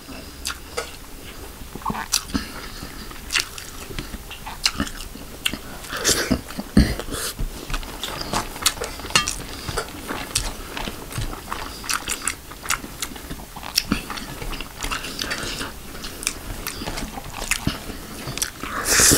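Close-miked eating sounds: a man chewing and lip-smacking mouthfuls of yellow rice and chicken gravy eaten by hand, as many small irregular wet clicks and smacks. A louder noisy burst comes right at the end.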